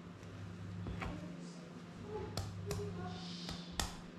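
A few light clicks and taps of a metal utensil against pastry pies and a wooden chopping board, spaced unevenly, over a steady low hum.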